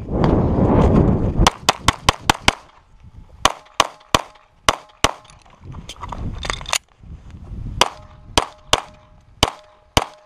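Springfield XDm 5.25" 9mm pistol fired in fast strings of shots, several cracks about a fifth of a second apart, with short pauses between strings. The first shots come about a second and a half in, after a rushing noise of movement.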